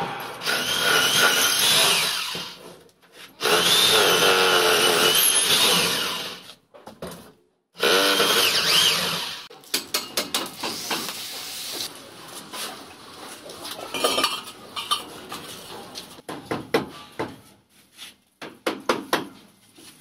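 A handheld electric power tool runs in three bursts over the first ten seconds or so, its pitch wavering as it works under load, followed by a series of irregular knocks and taps.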